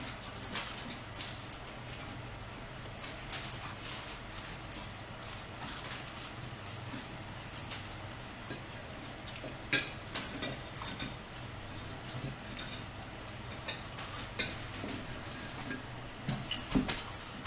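Close-up eating sounds: chewing French fries with wet mouth clicks and lip smacks, among scattered sharp taps of forks on plates.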